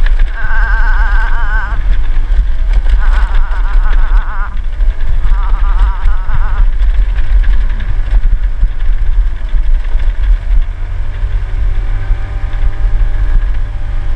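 A scooter travelling over a bumpy gravel road, heard as a loud, steady low rumble of road and wind noise on the mounted camera. Three short warbling tones come in during the first seven seconds.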